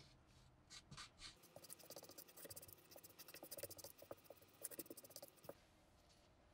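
Thin wooden stick stirring and scraping two-part epoxy on painter's tape over a wooden bench: a quick run of small scratches and light taps that stops about a second before the end.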